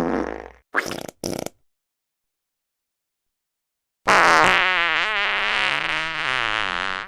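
Fart sounds: three short farts in quick succession, then after about two and a half seconds of silence one long fart of about three seconds with a wavering pitch.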